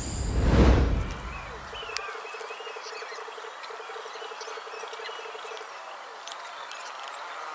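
A deep swelling whoosh sound effect peaks in the first second and dies away by about two seconds. Then comes an outdoor background of small chirps and an insect's pulsing buzz on one steady pitch, which stops about six seconds in.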